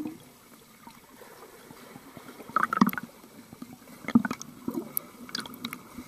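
Muffled underwater sound of a swimmer's freestyle strokes in a pool: dull splashes and bubbling, with irregular knocks and clicks, the loudest cluster about two and a half seconds in and another just after four seconds.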